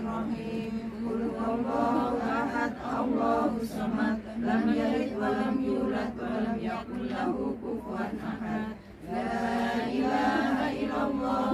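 A group of women reciting Arabic Quranic verses aloud together in a unison chant. There is a short pause for breath shortly before the end, then the recitation resumes.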